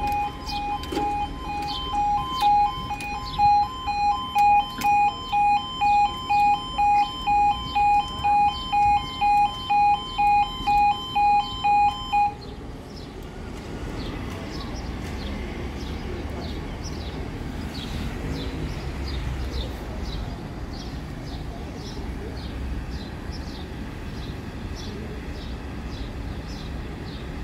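Level crossing warning alarm sounding a pulsing two-tone yodel, about two pulses a second, which cuts off about twelve seconds in. It is followed by a steady low rumble with evenly spaced light ticks, about two a second.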